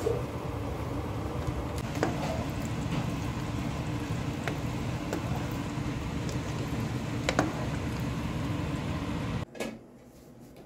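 Creamy sauce simmering in a frying pan as a spatula stirs it: a steady bubbling hiss with a low hum under it, and a few light clicks of the spatula against the pan. The cooking sound falls away sharply about nine and a half seconds in.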